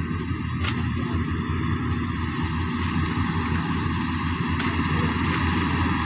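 New Holland 8070 combine harvester running steadily as it cuts wheat: a constant engine and threshing drone, with a few short clicks.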